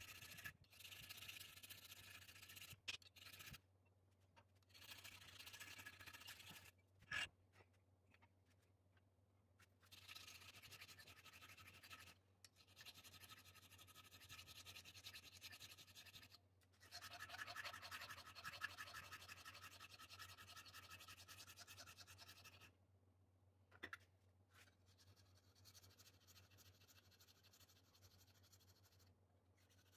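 Flat hand file rasping across a hardened steel screwdriver tip held in a bench vise, in runs of strokes lasting a few seconds with short pauses between, growing fainter near the end. A few sharp clicks of the file against the metal, over a faint steady hum.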